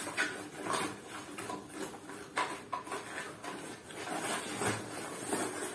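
Cardboard toy box being handled and slid open, giving scattered brief scrapes and taps of cardboard on cardboard.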